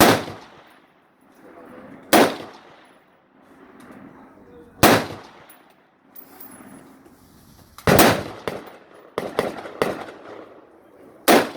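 Rifle gunfire: five loud single shots spaced a few seconds apart, each with a short echo, and a quicker string of three or four quieter shots about nine seconds in.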